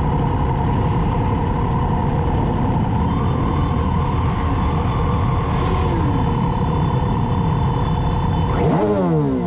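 Many motorcycle engines running together in a slow-moving group ride, a dense steady drone. Near the end one engine's pitch dips and then climbs again as it is revved.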